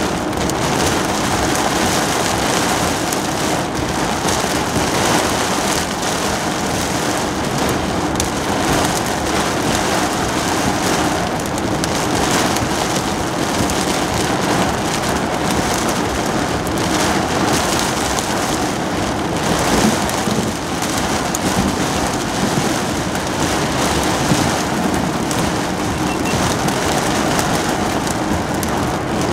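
Heavy rain beating steadily on a car's roof and windshield, heard from inside the cabin during a severe thunderstorm downpour.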